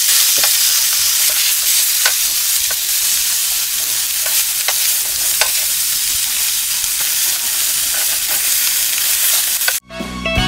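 Beef short-rib steaks sizzling loudly in a hot nonstick frying pan as they sear, with a steady hiss broken by occasional sharp clicks and pops as they are turned with metal tongs. The sizzle cuts off suddenly near the end.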